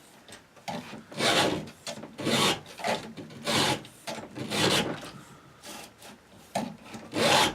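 Round chainsaw file rasping across the cutters of a saw chain, steel on steel, in repeated push strokes about one a second.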